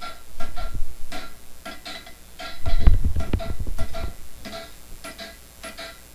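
Hand-hammer blows on red-hot mild steel over an anvil, about four a second, each with a short ringing anvil tone; a stretch of heavier, deeper thuds about three seconds in is the loudest part. The hammering scarfs the band ends into a wedge for forge welding.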